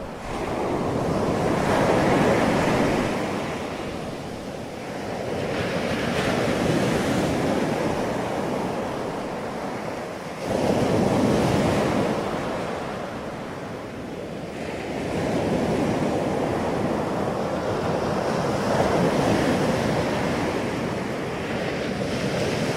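Ocean waves breaking on a beach: the surf swells and fades in about four surges, one arriving abruptly about ten seconds in.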